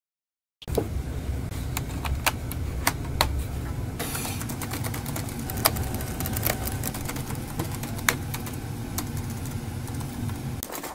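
Toshiba laptop keyboard clicking as someone types, the keystrokes coming irregularly one or two at a time over a low steady rumble. The sound starts abruptly about half a second in.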